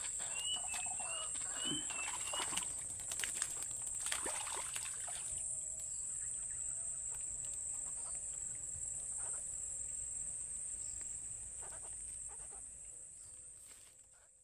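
Steady high-pitched trilling of insects, likely crickets, with a bird chirping briefly near the start and some rustling and clicks in the first few seconds. The sound fades out near the end.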